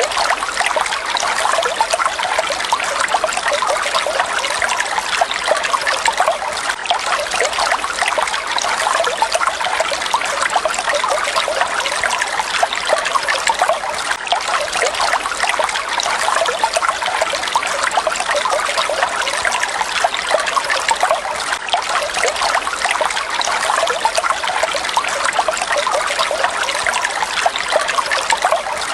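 Falling water splashing steadily: a continuous, even patter of small splashes with little deep rumble.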